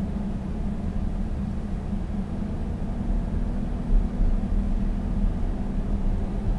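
Steady low rumble inside the cabin of an Audi Q7 3.0 TDI on the move: its V6 diesel engine and tyre noise, with a short low thump about four seconds in.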